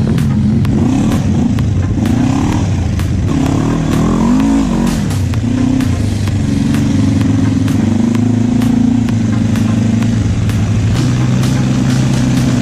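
Quad bike (ATV) engine running under throttle: its pitch rises and falls several times in the first five seconds, then holds steady. Many brief knocks run through it.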